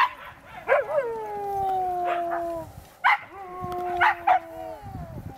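Sled dogs yelping and howling: three long howls, each starting with a sharp yelp and sliding slowly down in pitch.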